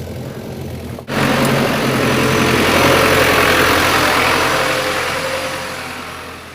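JCB backhoe loader's diesel engine running steadily. About a second in, after a sudden break, a much louder rushing noise joins it, swells, then fades away.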